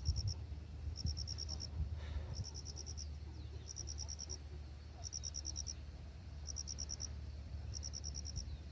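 A cricket chirping in regular bursts: a quick run of six or seven high pulses, repeated about every second and a bit, over a low steady rumble.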